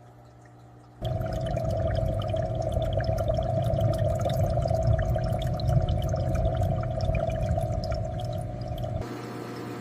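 Aquarium water bubbling and splashing, full of small pops, starting abruptly about a second in over a low steady hum and dropping to a softer, steadier water sound near the end.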